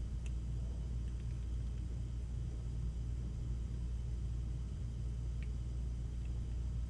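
A steady low hum of background noise with a few faint clicks, in a pause with no speech.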